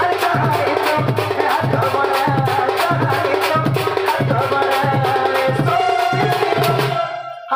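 Live Indian folk-theatre music: a steady hand-drum beat with percussion, and a man singing into a microphone over it. The music breaks off briefly near the end.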